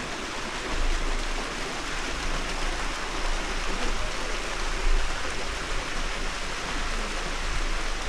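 Waterfall rushing steadily, an even hiss of falling water, with a low rumble underneath that swells briefly about a second in and again near the middle.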